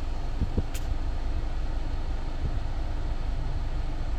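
Steady low vehicle rumble, with a couple of faint clicks about half a second in.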